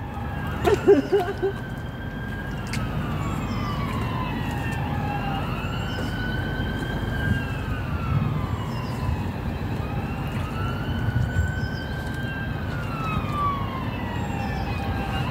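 Emergency vehicle siren wailing, its pitch rising and falling slowly about every four and a half seconds, over a low rumble.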